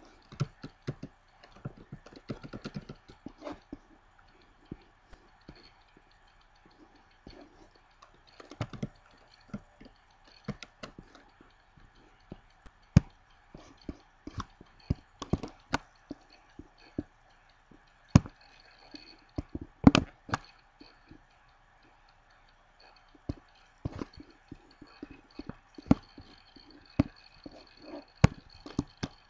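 Scattered, irregular clicks and light knocks from handling a computer's mouse and keyboard, the sharpest near the middle, over a faint steady hum.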